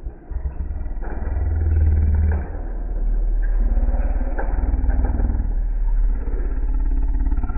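Diecast toy cars rolling down a plastic race track: a loud, low rumble with a fast rattle that starts suddenly and keeps going.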